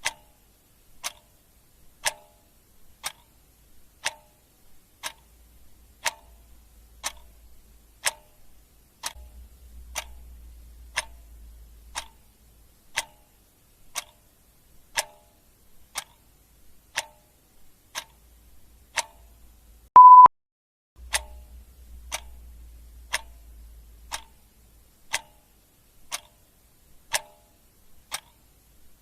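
Clock ticking steadily once a second, with one short, loud, high beep about twenty seconds in.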